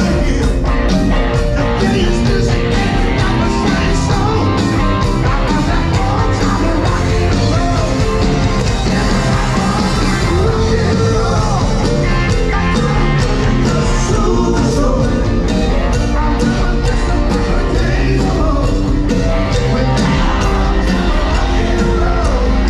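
Live rock band playing: electric guitars and a drum kit with a steady beat, and a singer.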